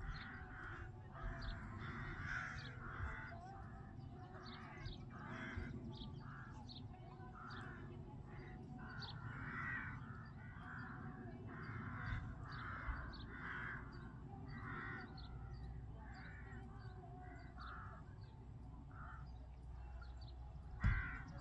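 Crows cawing over and over, about two caws a second, growing sparser in the last few seconds, over a low steady rumble. A single thump near the end.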